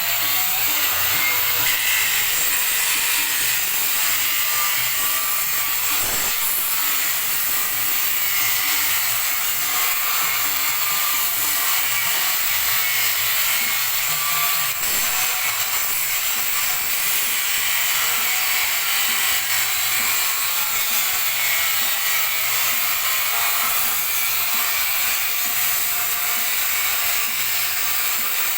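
Electric polisher fitted with an abrasive disc, running under load as it grinds and strips the surface of a flat steel strip: a steady hissing grind with a motor whine that wavers slightly in pitch.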